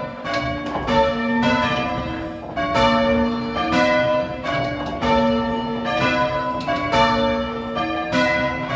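Church tower bells in change ringing: a ring of several bells struck one after another in a steady rhythm, a few strokes a second, each note ringing on into the next.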